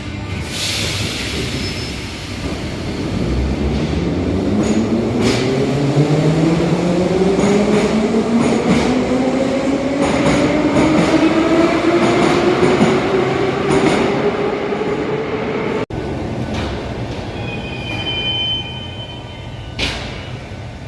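Moscow metro train pulling away from a platform, its traction motors whining and rising steadily in pitch as it accelerates, over wheel and car rumble. The sound breaks off sharply about sixteen seconds in, leaving quieter platform noise.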